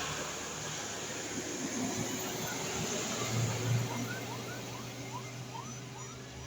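Road traffic on a wet road: a steady engine drone under an even hiss of tyres. Past the middle it is joined by a run of short rising chirps, two or three a second.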